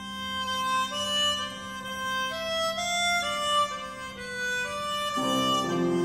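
Harmonica playing a slow melody of held notes stepping up and down over a steady hurdy-gurdy drone. About five seconds in, a fuller, lower set of notes joins.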